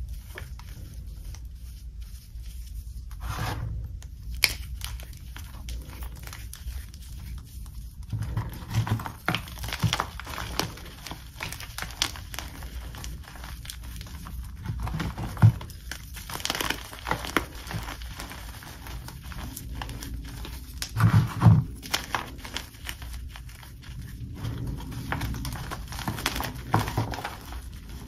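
Hands crushing and squeezing dry, crumbly blue-dyed gym chalk, with irregular dusty crunching and crackling as the chunks break into powder. Louder clusters of crunches come about a third of the way in and again about three quarters of the way through.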